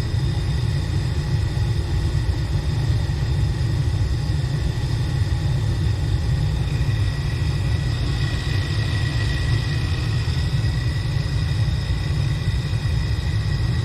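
Gas furnace running on its draft inducer motor before the blower starts: a steady low rumble with a thin, steady high whine over it. A second whine tone joins about seven seconds in.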